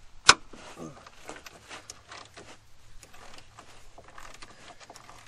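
Hand wrench working a bolt under a minivan's steel underbody: one sharp metallic clank about a third of a second in, then a run of irregular light clicks and taps of the tool on metal.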